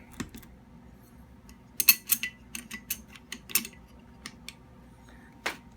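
Light metallic clicks and clatter of a metal cover plate and small gun parts being handled and fitted on. The clicks come in a quick run about two to three and a half seconds in, then a few scattered ones, the last near the end.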